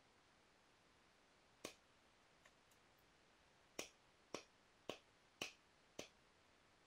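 Flintknapping: sharp clicks of a knapping tool striking a piece of Rainy Buttes stone. One strike, a faint tick, then five strikes in a row about half a second apart.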